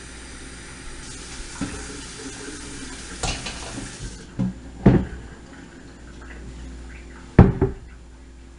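Kitchen tap running for about three seconds, then shut off, followed by a few loud knocks and clunks of kitchenware being handled.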